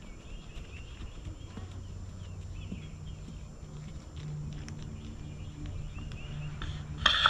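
Outdoor ambience: a low wind rumble with faint bird chirps in the first second or so, and a low steady hum that sets in about halfway. Just before the end a louder sound starts abruptly.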